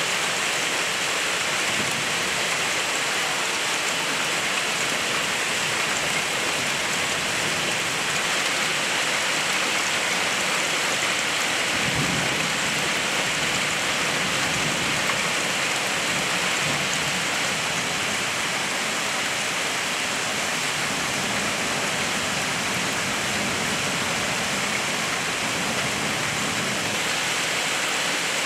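Heavy rain mixed with small hail pouring down onto clay roof tiles, a steady dense hiss, with a brief low rumble about twelve seconds in.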